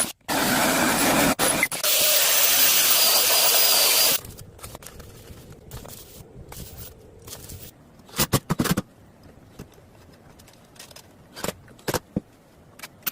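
A power tool running loudly on wood for about four seconds, then stopping, followed by scattered short knocks and a few brief bursts.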